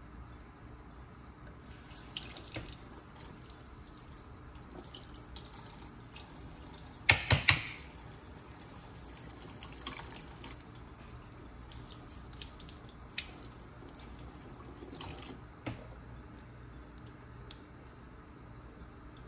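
Kitchen faucet running with its aerator removed, the stream splashing into the sink as small parts are rinsed under it. It starts about two seconds in and stops about fifteen seconds in, with three quick loud knocks about seven seconds in.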